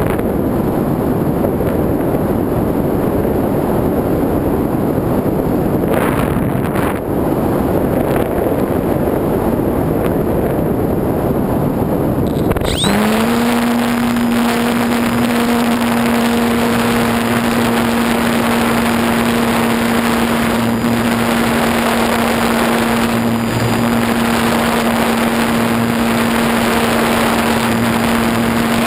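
Wind rushing over an FPV model aeroplane as it glides. About halfway through, the plane's motor and propeller start up and run on at a steady pitch, a constant hum under the wind.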